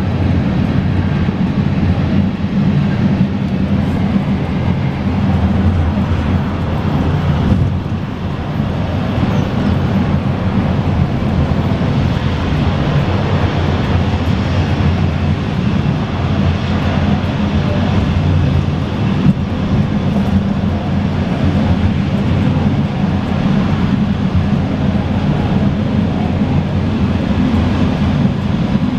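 Budavári Sikló funicular car running down its track, heard from on board: a steady, unbroken low rumble with a hiss over it.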